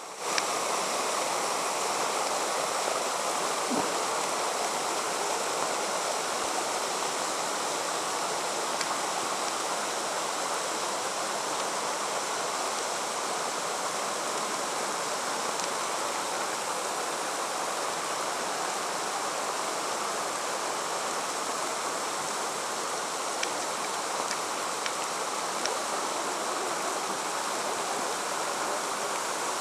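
Steady rush of water running down a wet rock face.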